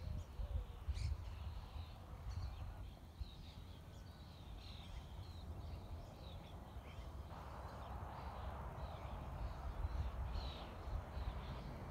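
Birds chirping and calling in short, high chirps scattered throughout, over a low, gusty rumble of wind on the microphone.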